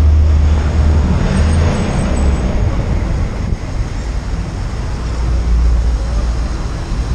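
Road traffic noise: car engines running close by in slow traffic, a steady low rumble that swells briefly about a second in.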